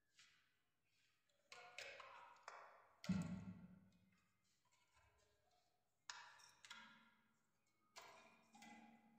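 Faint metallic clinks and knocks from the metal parts of an electric water heater's heating-element assembly being handled, each strike ringing briefly. A duller thump a little after three seconds in is the loudest.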